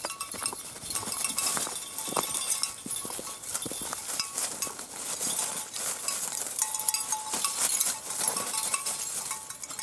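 Footsteps on a frozen trail with metal dog tags jingling: an irregular patter of steps over a hiss, with short bright metallic rings.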